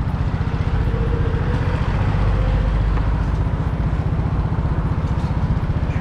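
Honda Innova 125's single-cylinder four-stroke engine running at low revs, with an even low beat of firing pulses from about halfway through, as when the bike rolls slowly or waits in traffic.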